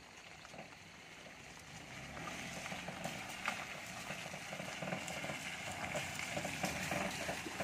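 Small Maruti Suzuki Alto hatchback approaching slowly over a wet, gravelly lane: tyres crackling and hissing through grit and puddles over a low engine hum, growing steadily louder as it nears.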